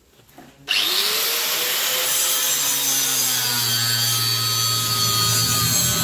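Hand-held angle grinder switched on about a second in, its whine rising as the disc spins up, then cutting into metal held in a vise with a steady grinding hiss.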